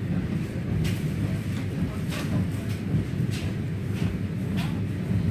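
Inside an electric commuter train running along the line: a steady low rumble of wheels and running gear, with a short, sharper tick about once a second.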